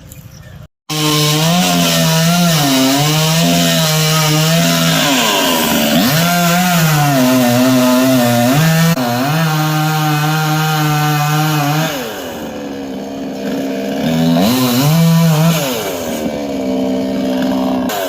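Chainsaw cutting through a coconut palm trunk, its engine pitch dipping repeatedly as it bogs under load and then recovering. It starts abruptly about a second in and gets somewhat quieter about two-thirds of the way through.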